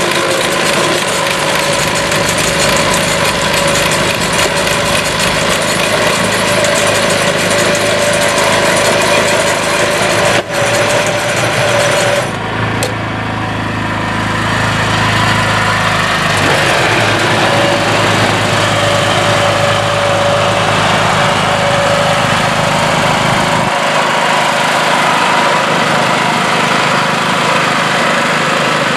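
The 13 horsepower Honda engine of a BCS walk-behind tractor running steadily under load while it drives a small round hay baler. The sound briefly drops out about ten seconds in and changes abruptly about twelve seconds in, losing much of its high hiss.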